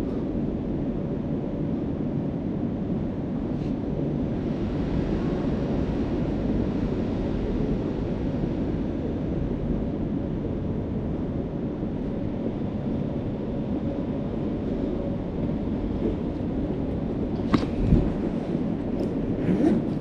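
Triumph Scrambler 900's parallel-twin engine running steadily at low revs as the bike rolls slowly through an underground car park, a low rumble. A couple of sharp clicks near the end.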